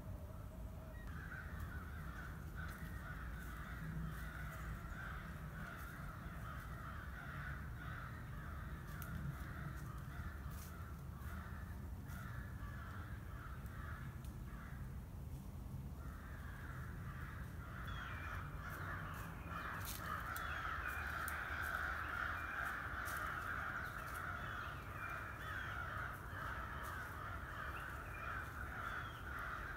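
A dense, continuous chorus of distant animal calls with a harsh, cawing quality, which drops out abruptly about halfway through and comes back stronger. Scattered light clicks and rustles sound over it.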